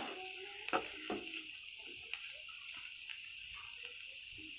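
Shredded potatoes frying in oil in a karahi: a steady sizzle as they brown, with a few light scrapes and taps of a spatula against the pan in the first second or so.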